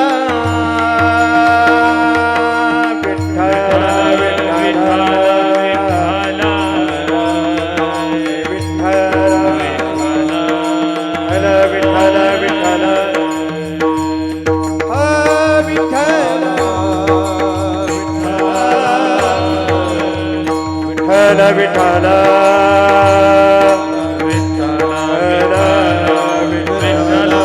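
Marathi devotional kirtan music: a voice sings long, bending melodic lines over a steady drone, with a pakhwaj drum keeping a steady rhythm underneath.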